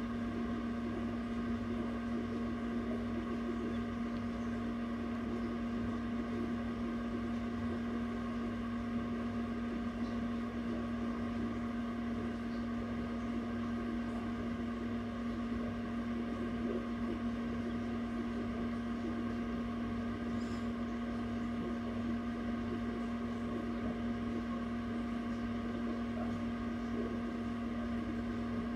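Egg incubator running: a steady mechanical hum from its fan and motor, with a constant low tone.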